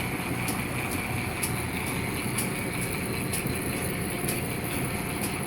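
Champion camelback drill press running quietly on its flat belt from a 1.5 horsepower Delco electric motor: a steady run with a sharp tick about once a second, made by the steel belt lacing as it passes over the smaller bottom pulley.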